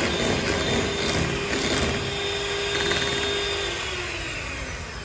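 Electric hand mixer running, its twin beaters whisking double cream in a glass bowl as the cream thickens to stiff peaks. The motor's steady whine sinks slightly and fades about four seconds in.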